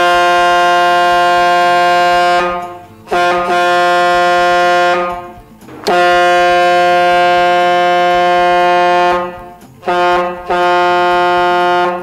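Trigger Horns Magnum 44 single long chrome-plated trumpet train horn, fed by a 200 psi air compressor and tank, blasting at one steady pitch. It sounds five times: three long blasts, a short toot, then another blast near the end.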